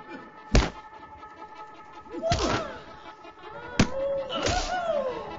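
Punch-and-kick impact sounds of a kung fu fight: four sharp hits, the loudest about half a second in, the others about two and a half, just under four, and four and a half seconds in.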